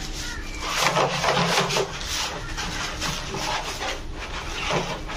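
Black plastic sheet rustling and crinkling as it is wrapped around a bundle of cut bamboo tubes, with the hollow bamboo knocking against each other now and then. The handling is loudest about a second in.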